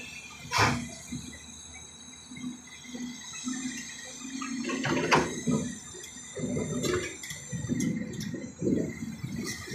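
JCB tracked excavator digging, its engine running under uneven rumbling, with a few sharp knocks.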